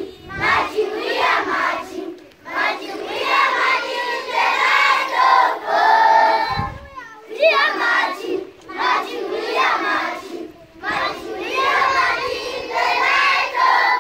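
A large group of schoolchildren singing the school anthem together in unison, in phrases with short breaks between them.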